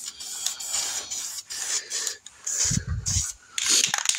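Aerosol spray paint can hissing in several short bursts as black paint is sprayed onto a steel running board. A brief low thud comes about three seconds in.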